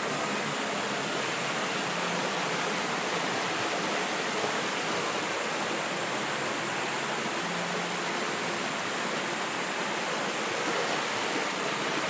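Mountain stream rushing steadily over rocks and between boulders into a clear pool.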